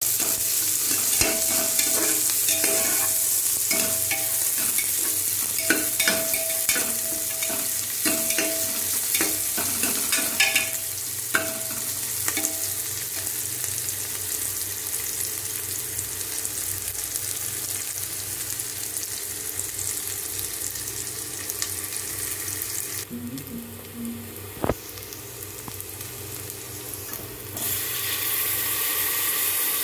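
Sliced onions and bay leaf sizzling in hot oil in an aluminium pressure cooker, stirred with a steel ladle that scrapes and clinks against the pot over the first dozen seconds. The sizzle drops low for a few seconds near the end, then comes back loud about two seconds before the end.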